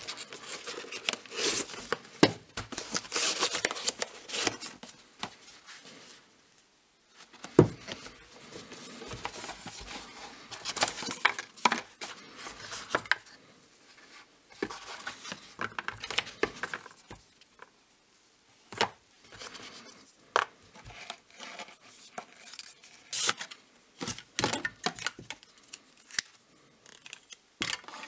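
Cardboard boxes and packaging of a Tactacam 5.0 camera kit being unpacked by hand: irregular rustling and scraping of box lids, paper inserts and foam, with small clicks and knocks as the plastic camera parts are lifted out and handled, one sharp knock about a third of the way in.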